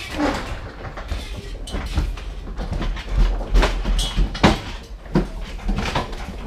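Hand pallet jack pulling a loaded pallet over a truck trailer's floor: the wheels rumble and rattle, with repeated knocks and clunks.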